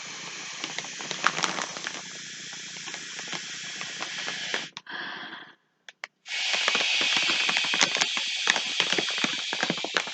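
Breath blown hard through a plastic straw into the Na Na Na Surprise confetti bag: a long steady hiss, a short puff after a pause near the middle, then a louder hiss with many small crackles.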